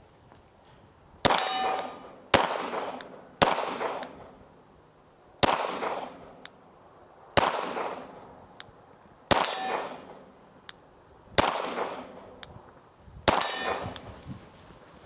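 A Glock 45 9mm pistol fired at steel targets, about eight shots spaced one to two seconds apart. Each shot is followed by metallic ringing, and fainter ticks fall between the shots.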